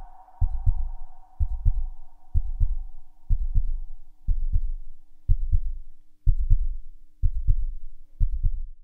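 Heartbeat-like sound effect on the outro soundtrack: a low double thump about once a second, over a steady low hum. A higher tone fades out in the first couple of seconds.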